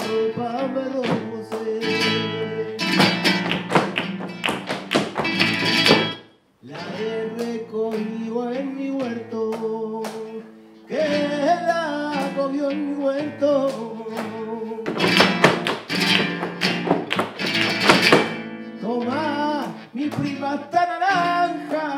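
Live flamenco: a man singing cante over a flamenco guitar, with two runs of rapid heel-and-toe zapateado strikes from the dancers' shoes on the wooden floor. The music stops short for a moment about six seconds in, then resumes.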